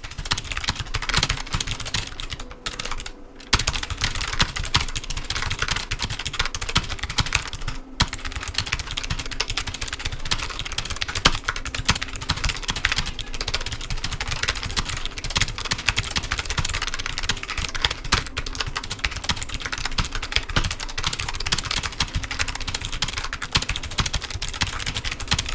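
Fast, continuous typing on a Logitech G915 TKL low-profile mechanical keyboard with clicky (GL Clicky) switches: a dense stream of key clicks, with brief breaks about three seconds in and near eight seconds.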